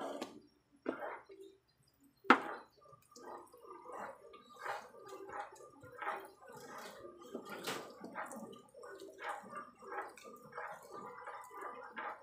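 Thick ube halaya mixture being stirred in a pan, wet squelching strokes repeating about every half second to second. A sharp knock about two seconds in, like the utensil striking the pan, is the loudest sound.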